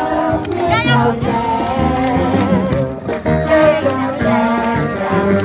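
Live band playing a song through a PA loudspeaker, with a vocalist singing into a microphone.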